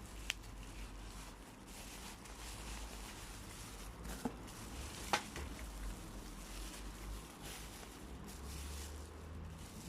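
Faint handling noises of plastic-and-fur toy Furbies being turned over in the hands: soft rustling with three short sharp clicks, over a low steady rumble.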